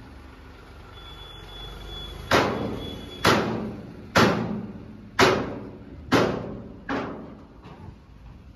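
Six heavy clanging bangs about a second apart, each ringing out briefly before the next; the last two are weaker.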